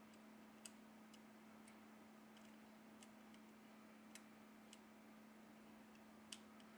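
Faint, sparse little clicks, about ten at irregular intervals, as a fingertip presses flex-cable connectors and parts down onto a Redmi Note 9's mainboard, over a steady faint low hum.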